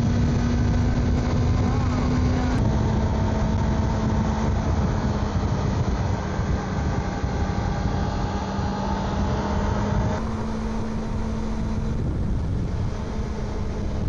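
Kawasaki motorcycle engine running at a steady cruising speed, with heavy wind rush on the microphone. The engine note steps slightly lower about two and a half seconds in.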